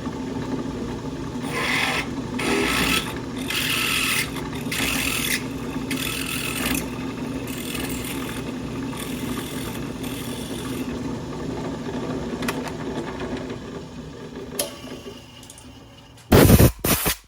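Drill press running at about 2380 RPM as a high-speed steel twist bit is fed into aluminum in repeated pecks, each cut a short hissing grind over the steady motor hum. The motor then runs down, and there are a couple of loud knocks or handling noises near the end.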